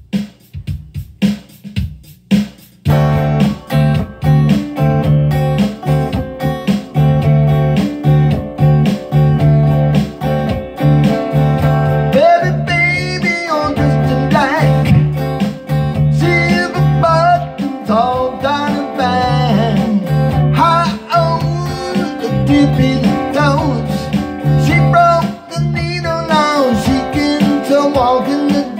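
Solid-body electric guitar playing a blues riff: a few single picked notes, then about three seconds in a steady driving rhythm pattern with a strong bass line. A man's singing voice joins about twelve seconds in.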